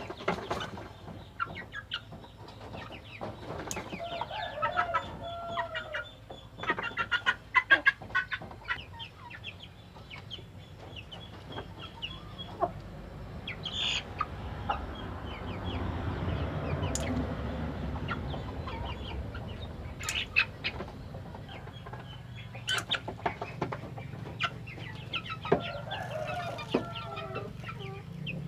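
A flock of young crossbreed Asil chickens clucking and peeping in many short calls, with a steadier background noise swelling up about halfway through.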